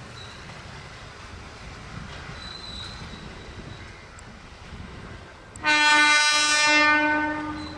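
Horn of an approaching ICF-built electric multiple unit (EMU) suburban train, one steady blast of about two seconds starting a little past halfway. Before it there is only a low, even rumble.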